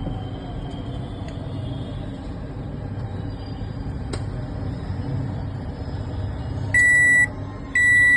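LG microwave oven running with a steady low hum, then its control panel gives two loud, high, even beeps about a second apart near the end, the signal that the heating cycle has finished.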